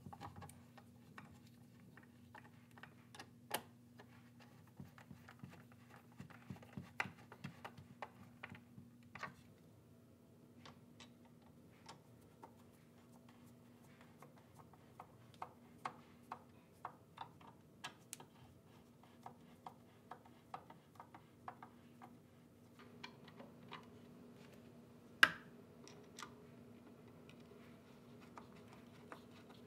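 Faint, scattered light clicks and taps of hand work on a wooden chair and tools, with one sharper knock about 25 seconds in, over a low steady workshop hum.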